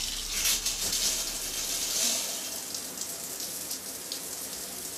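Shower running: a steady spray of water hissing down inside a shower cubicle.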